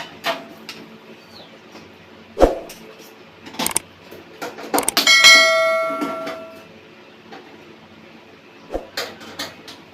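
Metal being knocked and handled, with scattered knocks and clicks. About five seconds in there is a loud metallic clang that rings on for about a second and a half, as from a microwave oven's sheet-metal parts being struck or dropped.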